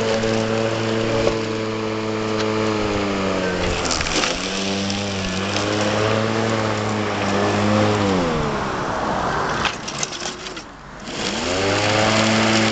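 Homemade robotic lawn mower running with a steady pitched hum. Its speed sags about four seconds in, then winds down almost to a stop around ten seconds in and spins back up near the end.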